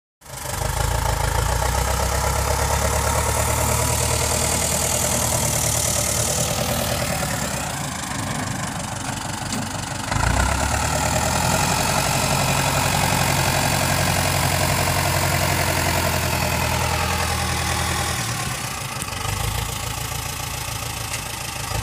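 Ford farm tractor's diesel engine running steadily under load as the tractor drives over a pile of chopped corn, compacting it for silage. The engine note shifts briefly about halfway through and eases slightly near the end.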